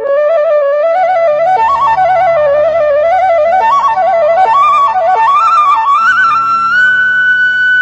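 Bansuri (bamboo flute) playing an ornamented melody that winds up and down, then settles on a long held high note near the end, over a low steady drone.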